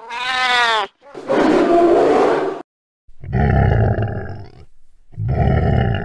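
Animal sound effects: a cat's wavering, pitched yowl, then a harsh snarl, then two deep roars like a big cat's.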